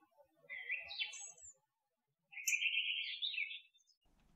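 Birds calling: two short runs of chirping calls, about half a second in and again about two and a half seconds in, with a couple of thin, high chirps between them.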